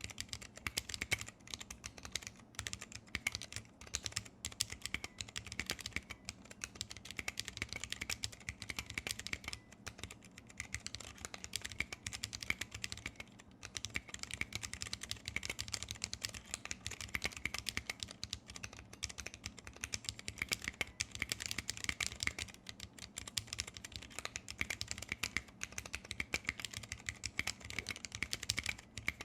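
Continuous fast typing on a 60% custom mechanical keyboard with vintage brown Alps switches lubed with PTFE, on a brass plate with PBT keycaps: a dense, uneven stream of key clicks with short pauses now and then.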